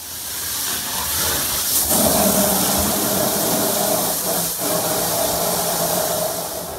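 Water spraying under full pressure from an open pipe, filling a room with mist: a loud, steady hiss that builds over the first two seconds and carries a faint whistling tone, fading near the end.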